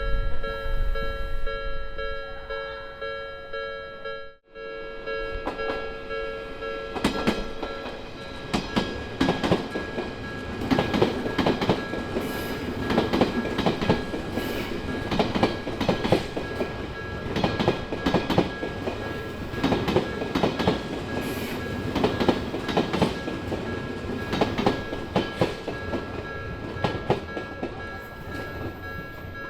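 Japanese level-crossing warning bell ringing steadily while an Odakyu Line train passes, its wheels clacking over the rail joints in a quick, uneven rhythm. The sound drops out briefly about four seconds in before the train noise builds.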